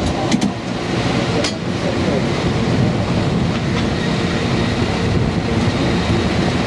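San Francisco cable car running along its track: a steady rumble with a few sharp clicks, one just after the start and another about a second and a half in.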